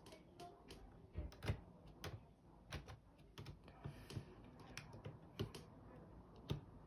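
Irregular light clicks and taps of a small plastic model locomotive being handled and set in place for display.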